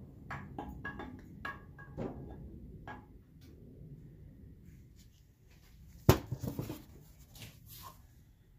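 Steel camshaft clinking against the cam bearings as it is slid and turned into a small-block Chevy 350 block: a run of light metallic clicks through the first three seconds, then one sharp knock about six seconds in followed by a few smaller ones.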